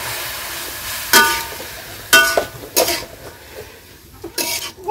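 Radish stir-frying in oil in a metal kadai, sizzling as it is stirred, with the stirring utensil striking the pan about four times with short ringing clinks.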